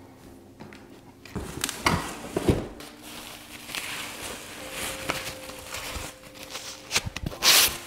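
Plastic bubble-wrap packaging rustling and crinkling in irregular bursts as parts are handled and lifted out of a cardboard box, with a loud crinkle near the end.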